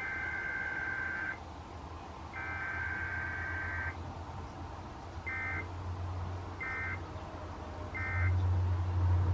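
Emergency Alert System SAME digital data bursts, the two-tone rasping code that carries an alert's header: two long bursts of about a second and a half each, then three short bursts about a second apart, the pattern of the end-of-message code. A steady low hum runs underneath and grows louder near the end.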